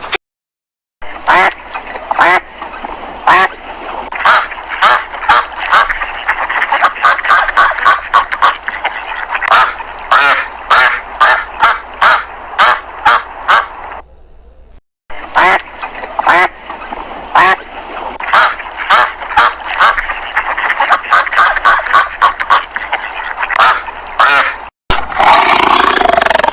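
Ducks quacking in rapid series of short calls, in two long stretches broken by a brief silence.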